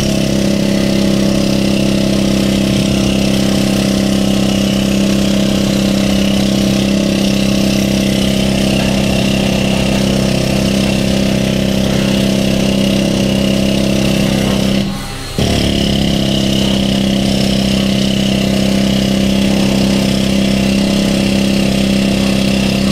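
Electric angle grinder with a flap disc running at steady speed, grinding rust and paint off steel. It cuts out briefly about two-thirds of the way through and starts again.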